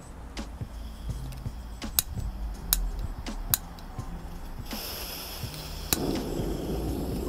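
Coleman FyrePower piezo camping stove on a gas cartridge: several sharp clicks, then gas hissing from the burner about two-thirds in, and a final click after which the burner lights and runs with a steady rushing noise.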